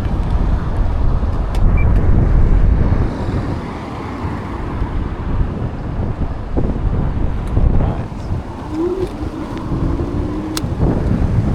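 Road traffic noise heard while riding an e-bike alongside queued cars, with a low wind rumble on the microphone. A short pitched tone sounds about nine seconds in.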